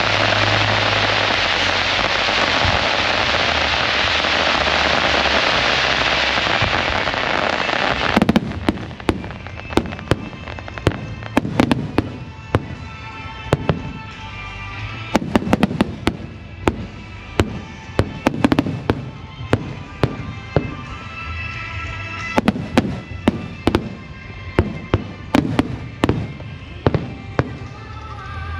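A dense, steady hiss for the first eight seconds or so, then a fireworks display: many sharp bangs in quick, irregular succession over music from loudspeakers.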